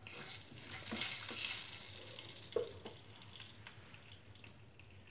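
Nigella seeds sizzling in hot mustard oil in a non-stick kadai as a wooden spatula stirs them, with a few light knocks of the spatula against the pan. The sizzle starts at once, is strongest a second or two in and dies down after about three seconds. It is the tempering stage of the curry.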